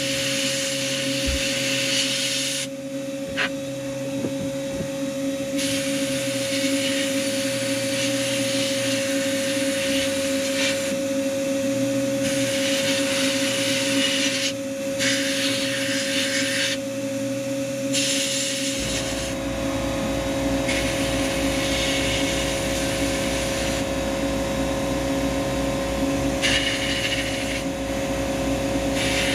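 Abrasive blast cabinet in use: the blast gun hisses in on-and-off bursts of a few seconds as a small block-plane part is blasted, over a steady hum. About two-thirds of the way through, a low rumble starts and keeps going.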